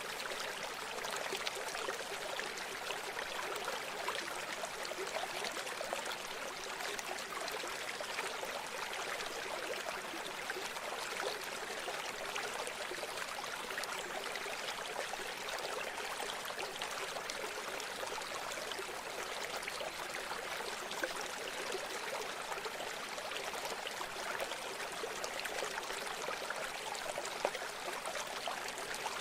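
River water flowing steadily, a continuous rushing and babbling with little deep rumble.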